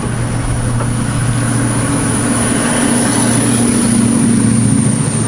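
Steady low hum of a running machine, with a constant high-pitched whine above it.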